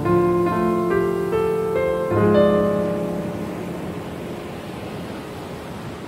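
Solo piano playing a gentle rising figure of single notes over a held chord for about two seconds, then letting it ring and slowly fade, over a soft hiss of ocean surf.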